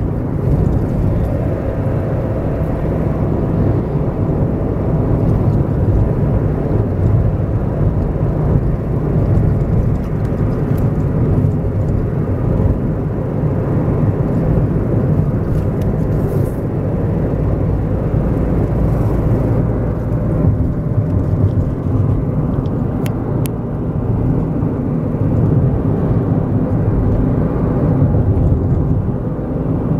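Steady engine and tyre noise of a car driving along a road, heard from inside the cabin.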